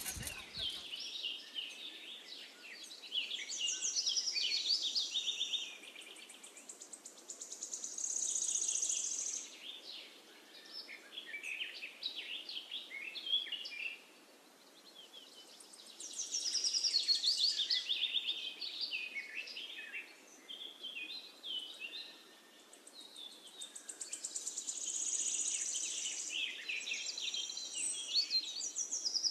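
Birdsong: several birds chirping and singing in quick, overlapping high phrases that swell and fade every few seconds.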